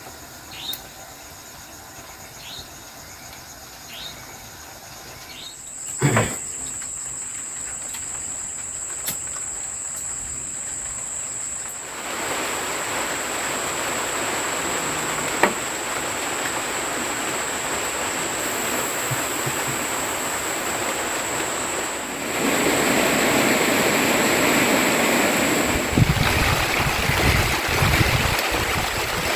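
Rain falling steadily, growing heavier a little after the middle, with gusts of wind buffeting the microphone near the end. Over most of it runs a steady high-pitched insect drone, and there are a few short chirps and a single thump in the first seconds.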